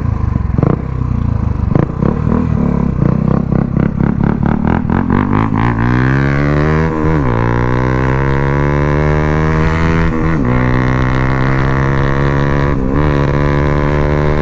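Motorcycle fitted with an aftermarket Akrapovic exhaust: rapid popping and crackling over a low rumble, coming faster for the first six seconds. Then the engine note rises and holds steady, dipping briefly three times.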